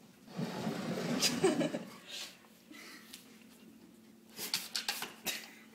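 A dog making breathy noises up close as it goes after a cricket, for about a second and a half, then a few sharp clicks and scrapes near the end.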